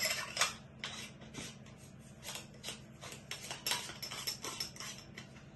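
Irregular clicks and scrapes of a handheld wireless microphone's plastic body being twisted and handled to open its battery compartment, stopping about five seconds in.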